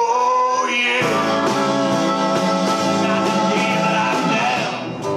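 Live rock band playing, with electric and acoustic guitars; the low end of the full band comes in about a second in.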